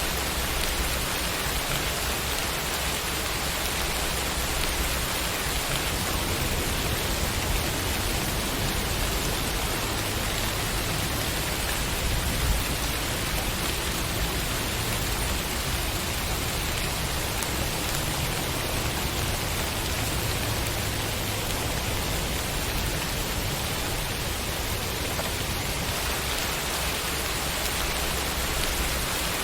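Steady rain falling, a dense even hiss of drops with a low rumble underneath and one slightly louder drop about halfway through.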